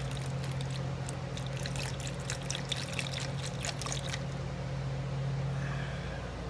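Water poured from a bottle into a plastic measuring cup, a thin trickling stream that stops about four seconds in. A low steady hum runs underneath.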